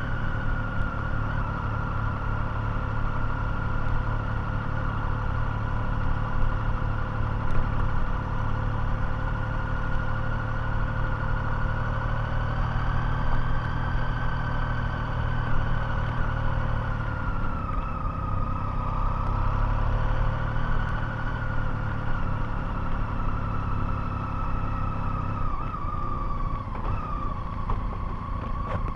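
Motorcycle engine running at a steady cruise while riding, its pitch dipping slightly about two-thirds of the way through and again near the end.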